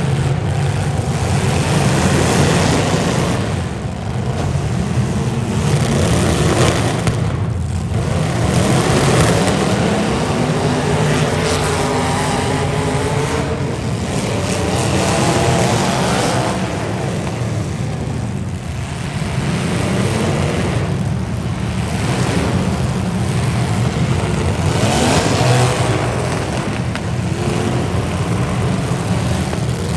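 Demolition derby car engines running and revving together, their pitch rising and falling over and over.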